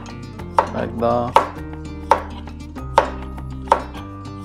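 Kitchen knife chopping a cucumber into chunks on a plastic cutting board: about five sharp chops, roughly one every 0.8 seconds.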